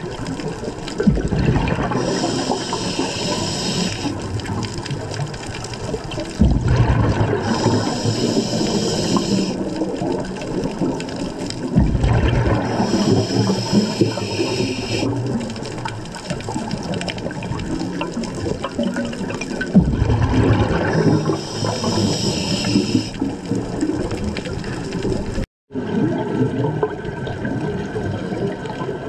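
Scuba regulator breathing underwater: repeated breaths, about one every five to six seconds, each a hiss followed by a rush of exhaust bubbles. The sound cuts out for an instant near the end.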